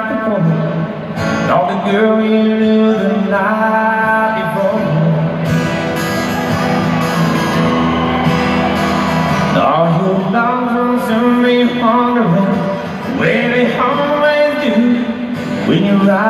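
A country band playing live in an arena: a male voice sings long, sliding lines over acoustic guitar and a steady low backing, recorded from among the audience.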